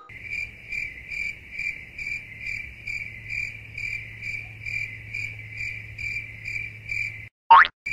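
Cricket chirping in an even rhythm, a little over two chirps a second, over a low steady hum. Near the end it breaks off for a brief, loud rising whoosh.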